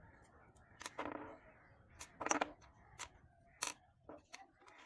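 Small metal nitro-engine parts clicking and knocking as they are handled and set down on a wooden table: a series of sharp, irregular clicks, the loudest about two seconds in.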